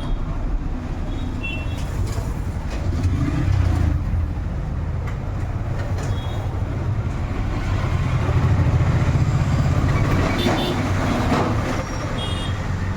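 Steady low rumble of passing road traffic, louder about eight to ten seconds in, with a few short high chirps over it.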